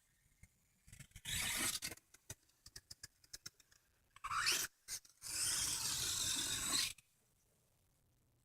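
Toy RC car scraping and rubbing in two loud bursts, the second nearly two seconds long, with scattered clicks between them and a short rising whine just before the second burst.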